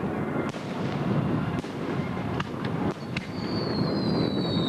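Fireworks display: several separate bangs of exploding fireworks. From about three seconds in, a whistling firework sounds, its high pitch slowly falling.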